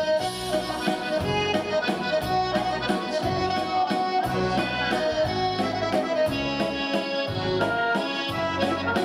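Instrumental waltz music led by accordion, playing a melody over an oom-pah-pah bass and chord accompaniment in a steady three-beat rhythm.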